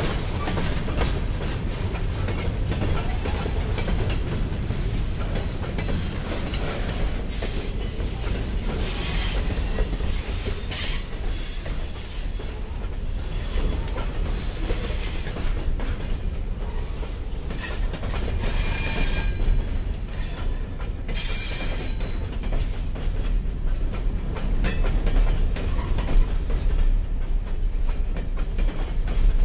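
Freight cars (tank car, boxcars and hopper cars) rolling past close by: a steady low rumble and clatter of steel wheels on the rails, with high-pitched wheel squeal coming and going in several stretches.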